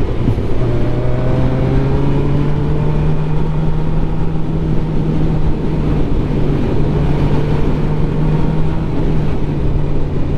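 Suzuki GSX-R 750 inline-four engine running at steady revs while riding, with an overtone climbing in pitch in the first couple of seconds, under constant wind rush.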